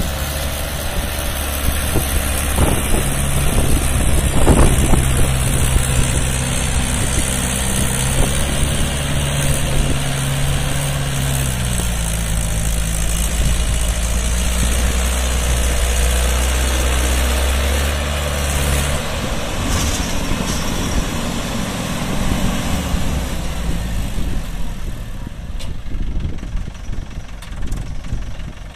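Mahindra 475 DI tractor's diesel engine working hard under the heavy load of a fully loaded trolley, with a steady low engine note that drops away about two-thirds of the way in, leaving a rougher, lower running sound.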